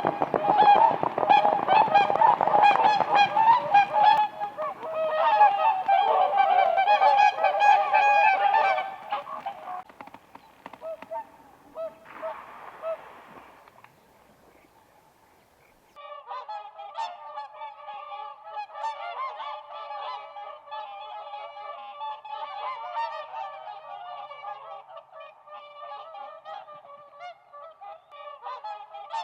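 A flock of whooper swans calling: loud, rapid honking calls for the first nine seconds or so, fading to a brief lull. Just past halfway a quieter, continuous chorus of many swans honking together starts up abruptly.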